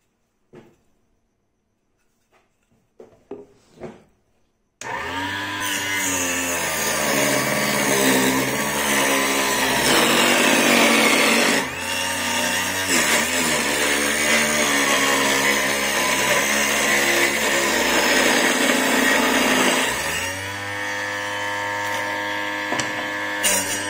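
Homemade mini table saw, an 895 DC motor spinning a 100 mm circular blade, starts about five seconds in after a few soft knocks, then runs loud while cutting wood strips. Its whine sags and wavers while the blade is in the wood, and settles steadier and a little quieter near the end.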